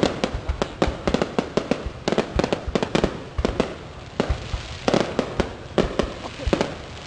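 Aerial fireworks going off in quick succession: a dense, irregular run of sharp bangs from shells bursting overhead.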